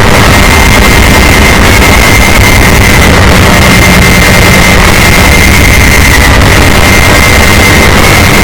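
Emergency alert alarm overdriven to the point of clipping: a steady high tone held without a break over harsh noise filling every pitch. It stays at full loudness throughout.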